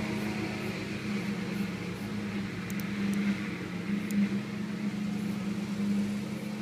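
Steady machine hum with a low, even drone, with a few faint ticks partway through.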